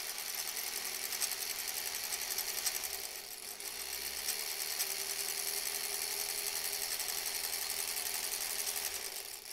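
Sewing machine running at a steady pace, top stitching along the edge of layered cotton fabric. It eases briefly about three seconds in, then runs on and stops near the end.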